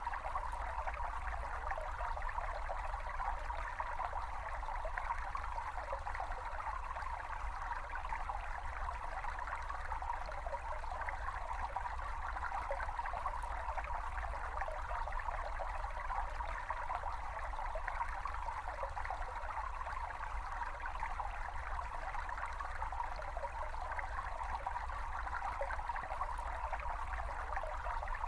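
A small brook babbling steadily, water trickling and gurgling over stones, with a low rumble underneath.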